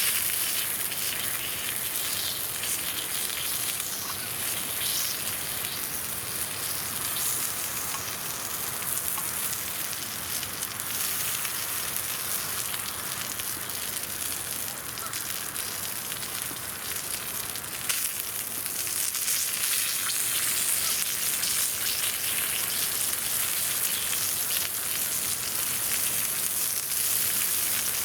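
Zabuton beef sizzling over a campfire: a steady high hiss with small crackles, and one sharp click about 18 seconds in.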